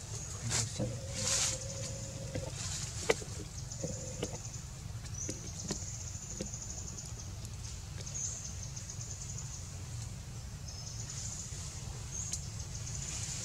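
Outdoor ambience with a steady low rumble and thin high-pitched trills that come and go in stretches of a second or two. There is a brief steady tone about a second in, and a few soft clicks, one sharp one about three seconds in.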